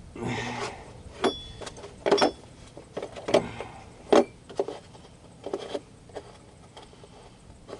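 Irregular metallic clinks and knocks of hand tools working on a seized oxygen sensor, a dozen or so sharp hits, a few of them ringing briefly.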